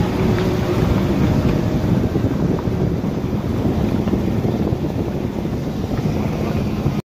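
Toyota Land Cruiser's 4.7-litre V8 driving along a rough road, its engine and tyre rumble mixed with wind buffeting a microphone mounted on the outside of the car. The noise breaks off abruptly at the very end.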